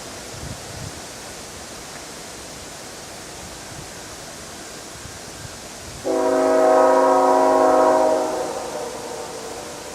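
Nathan Airchime locomotive air horn sounding one short chord of several notes about six seconds in. The blast starts abruptly, lasts about two and a half seconds and echoes away, over a steady background hiss.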